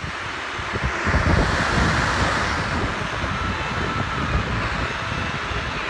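Car radio tuned to a weak, distant FM station at 96.7, giving steady hiss and static, with no clear programme audio coming through the noise.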